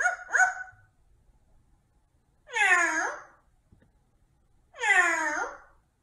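A green amazon parrot mimicking a cat's meow: two short calls at the start, then two long meows about two seconds apart.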